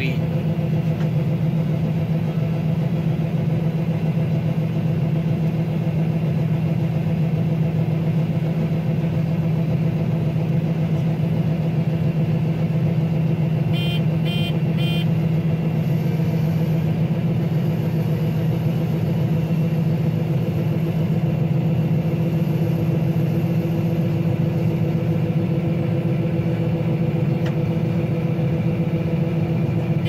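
Combine harvester running steadily, heard from inside the cab, with a constant low hum while its unloading auger empties the grain tank of wheat. A short run of three high beeps sounds about halfway through.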